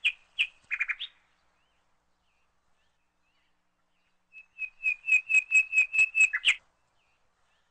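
A bird calling: a few short high chirps at the start, then about four seconds in a run of about ten quick notes at one pitch, roughly five a second.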